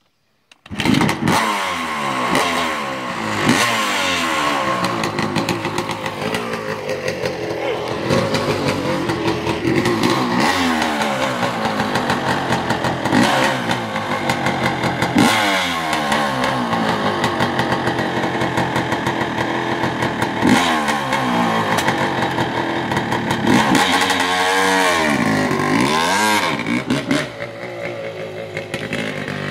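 Dirt bike engine running and revving, its pitch rising and falling over and over as the throttle is worked while the bike is ridden off; it comes in suddenly about a second in and grows a little fainter near the end as the bike moves away.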